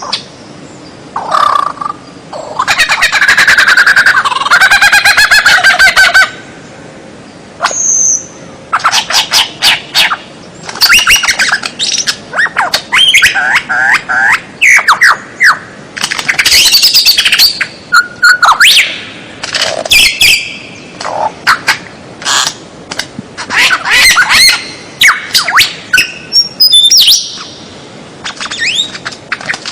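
Songbird song: a long run of rapid chattering notes a few seconds in, then a busy string of short whistled phrases, falling notes and sharp chips.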